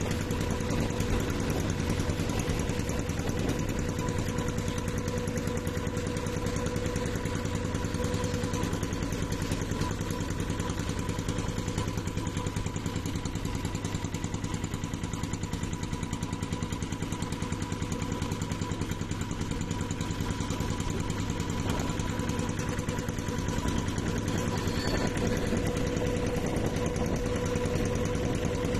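Wooden river boat's engine running at a steady speed while the boat is under way, an even hum.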